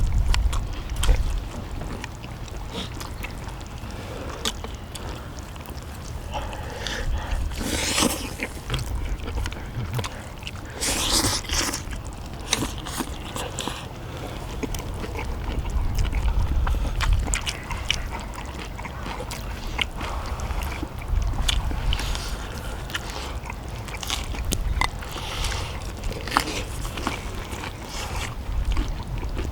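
People eating: chewing and slurping, with frequent light clicks of chopsticks and spoons on dishes and a few louder noisy bursts, over low wind rumble on the microphone.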